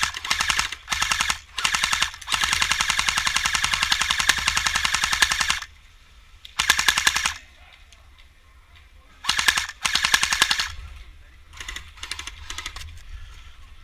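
Airsoft guns firing full-auto: a string of short bursts, then one long burst of about three and a half seconds, then more short bursts, the last few fainter.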